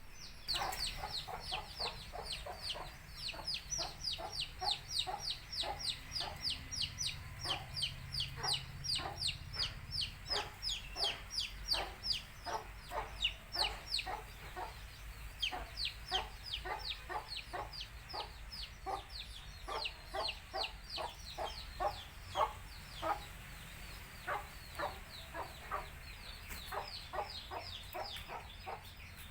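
A brood of baby chicks peeping continuously in rapid, high, falling chirps, with a country hen clucking in short repeated clucks among them.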